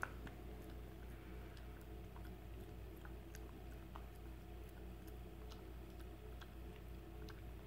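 Puppy gnawing an N-Bone teething stick: faint, irregular little clicks and crunches of teeth on the chew, with a sharper click right at the start.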